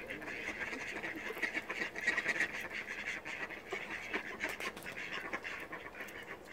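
Grey squirrel chewing and gnawing nuts and seeds close to the microphone: a fast, continuous crunching with sharp clicks, dying down near the end.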